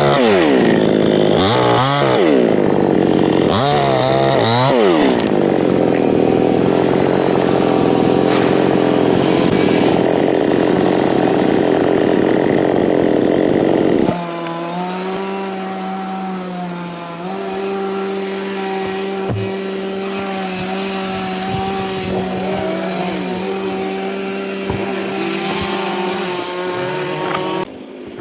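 Two-stroke chainsaw revved about three times, then held at full throttle in a steady cut, likely through teak wood. About halfway through it drops to a quieter, steady lower running note.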